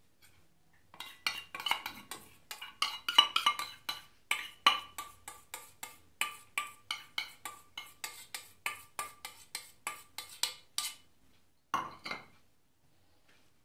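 Steel spoon knocking against stainless steel bowls, a quick run of metallic clinks, about two or three a second, each ringing briefly, as yogurt is knocked out onto chicken pieces. The clinking stops about eleven seconds in, with two last knocks soon after.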